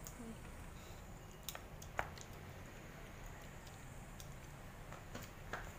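Metal spoons and forks clicking and scraping against plastic ice cream tubs: a few faint, scattered clicks, with one sharper click about two seconds in.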